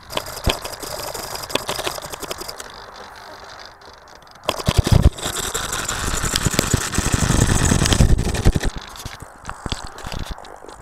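Handling noise from the foam flying wing's onboard camera as the plane is picked up and carried: knocks, rubbing against clothing and buffeting on the microphone, loudest and rumbling for a few seconds around the middle.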